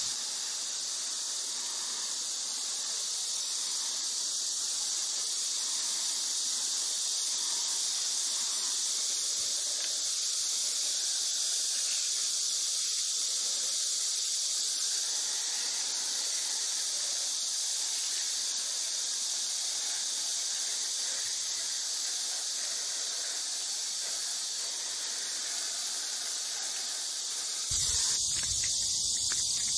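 Tap water splashing into a plastic basin full of Indian borage leaves as hands rinse and turn them, over a steady high hiss. Near the end the water stops and a low rumble comes in.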